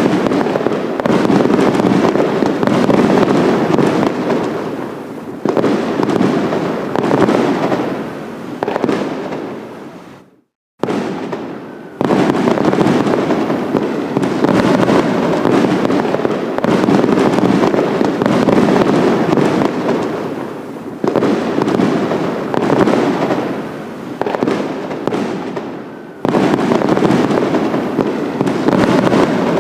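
Fireworks display: a dense run of overlapping booms and crackles that swells in waves, with fresh surges every few seconds. The sound cuts out completely for about half a second about ten seconds in.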